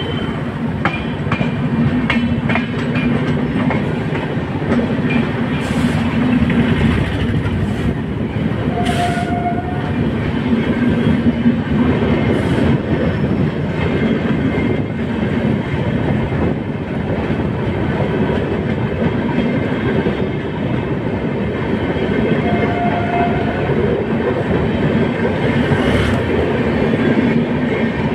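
A passenger train of LHB coaches rolling past at speed: a steady loud rumble with the rhythmic clack of the wheels over the rail joints. A short horn beep sounds twice, about nine seconds in and again near 23 seconds.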